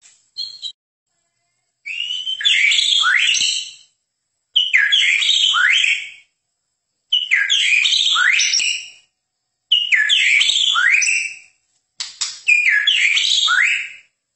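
White-rumped shama (murai batu, Medan type) singing. A couple of short notes come first, then five phrases of quick whistled notes sliding up and down, each about two seconds long with short pauses between.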